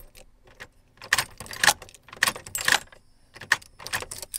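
A bunch of keys jangling at the ignition on the steering column in a series of short rattles as the key is worked, with no engine cranking or starting: the truck has sat unused for about a year.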